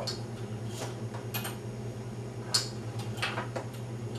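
Light, irregular clicks and ticks from a floor leg-exercise machine's metal frame and padded tension arm as a hamstring curl is worked, over a steady low hum.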